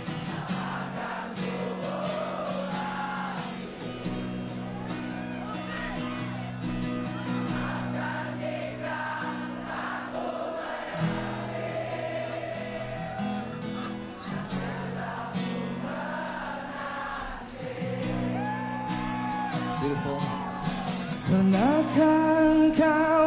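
Live band with acoustic guitar playing a slow pop-rock song while a concert crowd sings the lyrics along in chorus; near the end the music gets louder and a clearer lead voice comes in.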